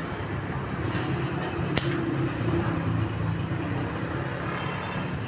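Steady hum of a motor vehicle engine running, amid street traffic, with a single sharp click a little under two seconds in.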